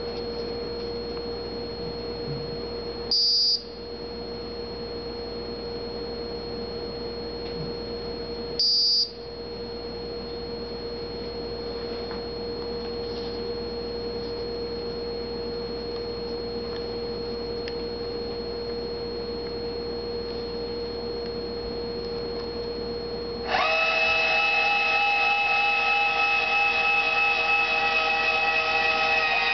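Meade LXD55 German equatorial mount under Autostar handbox control: a steady electronic tone, two short high beeps from the handbox about five seconds apart, then near the end a louder whine of several tones as the drive motors slew the mount.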